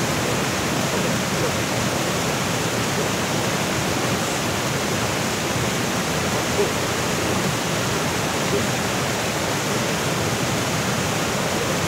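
Steady rush of water from a small waterfall pouring into a fast-flowing stream, an even, unbroken noise.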